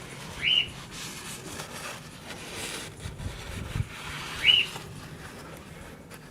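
Two short, high whistles about four seconds apart, each rising quickly and then dipping, over faint background noise.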